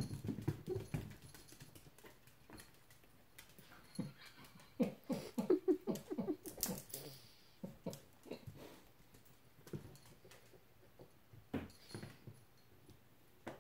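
A cat's paws and claws skittering and thumping on a hardwood floor as it chases and pounces on a feather wand toy. A dog makes short, low, pulsed whining sounds at the start and again about five to six seconds in.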